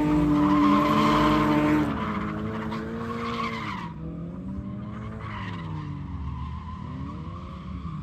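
2015 Scion FR-S's 2.0-litre flat-four engine held at high revs while its rear tyres skid sideways in a drift. About two seconds in the revs drop and the sound grows quieter, then the engine note rises and falls as the slide goes on.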